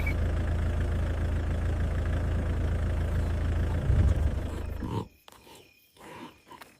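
Safari vehicle engine running with a steady low rumble, swelling louder just before four seconds in, then cutting off suddenly about five seconds in to near silence with a few faint sounds.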